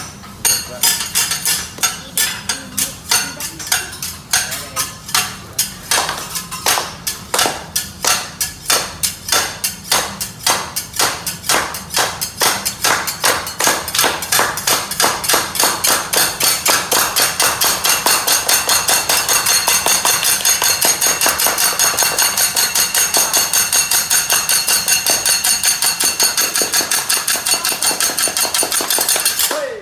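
Two metal teppanyaki spatulas striking the steel griddle in a rapid chopping rhythm. The strikes are uneven at first and settle into a steady beat of about four a second from about halfway.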